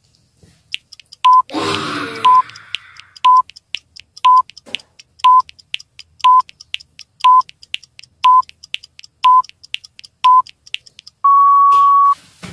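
Countdown timer sound effect: ten short beeps a second apart with faint ticking between them, ending in one long beep. About two seconds in, a child exhales with a breathy 'ha' roar for the lion pose.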